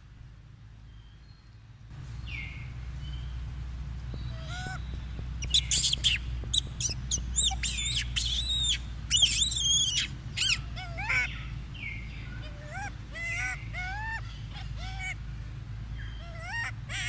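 Young macaque monkeys calling: shrill screams in the middle, then a string of short calls that rise and fall in pitch, over a low steady hum.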